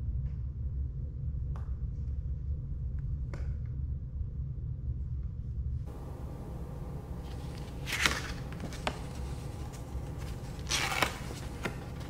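Paper envelope being handled and opened, with crinkling rustles about two seconds after the sound changes and again about a second before the end. Before that there is a steady low hum with a few faint light clicks.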